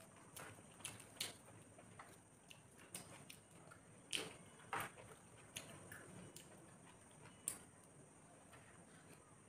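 Faint sounds of a person eating rice by hand from a steel tray: scattered soft clicks and smacks of mixing and chewing, thinning out after about six seconds.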